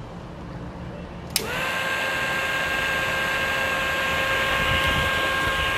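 Homemade mini siren, a small DC motor spinning a vaned rotor inside a plastic cup with holes, switched on with a click about a second and a half in. Its whine rises quickly to pitch and then holds a steady tone over the motor's whir.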